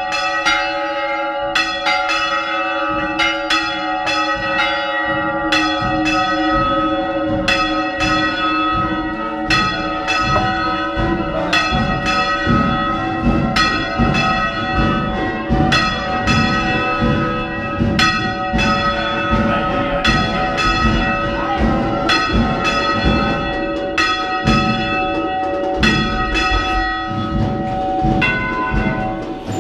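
Several church bells rung by hand, heard close up inside the belfry: rapid overlapping strokes whose tones ring on into one another. From about six seconds in, deeper, heavier strokes join at roughly two a second.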